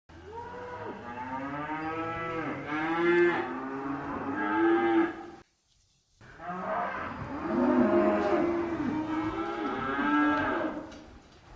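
Livestock calling: a string of long, pitched, wavering animal calls, breaking off for about a second near the middle before more calls follow.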